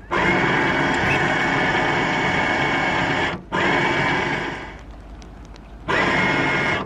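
Handheld power tool motor run in three bursts, each spinning up with a quick rising whine that holds steady. After the second burst it runs down gradually before the last short burst near the end.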